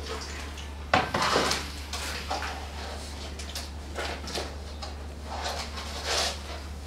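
Clinks and knocks of hands and objects handled in a large metal bowl, a string of separate strikes with the loudest about a second in, over a steady low hum.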